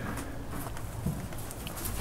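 Rabbits eating at a wooden feeding bowl close by: faint, irregular crunching and nibbling.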